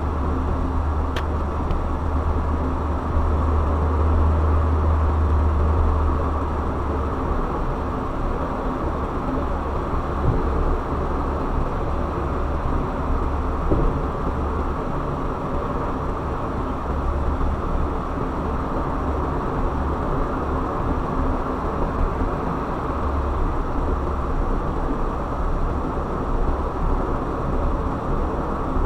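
Car driving along a road, with a steady rumble of engine and tyre noise; the low rumble eases slightly about six seconds in.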